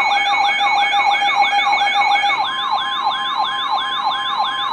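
Electronic alert siren sounding ahead of a severe thunderstorm warning broadcast: loud, fast sweeps up and down in pitch, about three and a half a second, over steady tones, with one steady tone giving way to another about halfway through.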